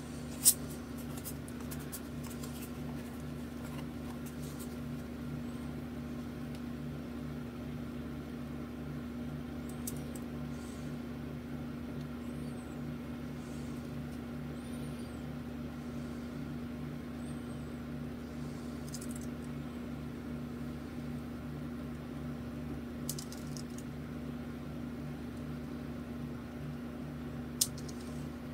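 Steady low electrical-sounding hum of room background, with a few faint isolated ticks.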